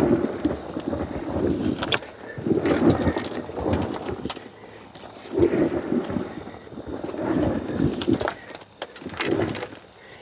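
Jora JK-270 compost tumbler's metal drum being turned by hand, its load of compost and powdered charcoal tumbling inside with a rumbling noise in repeated swells about every two seconds, with clicks and knocks from the drum.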